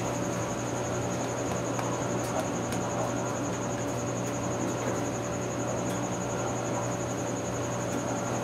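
Steady background hum with a continuous high-pitched, evenly pulsing whine and a few faint clicks.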